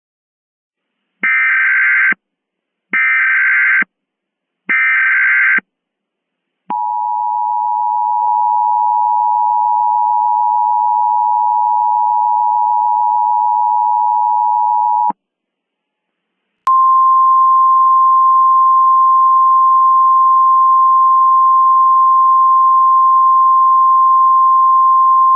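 Emergency Alert System tones. First come three short buzzing data bursts of the SAME header, then the two-tone EAS attention signal for about eight seconds. After a short pause a single steady tone like the 1050 Hz weather-radio warning tone begins and runs on.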